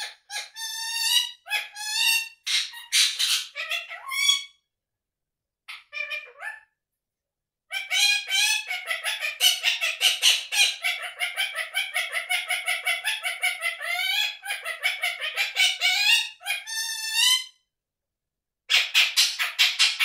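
Indian ringneck parakeet chattering in long runs of quick, rapidly repeated notes with some swoops in pitch, falling silent briefly about 4 s in, again about 7 s in, and near the end.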